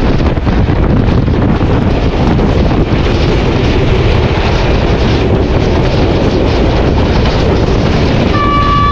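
Hitachi PHA-20 diesel locomotive running loud under power, a dense low-pitched engine and rail noise. A locomotive horn begins sounding, one steady tone, about eight seconds in.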